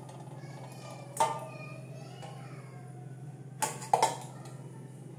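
A few knocks of a stainless steel bowl being moved on a kitchen counter, one about a second in with a brief ring and two close together near four seconds, over a steady low hum.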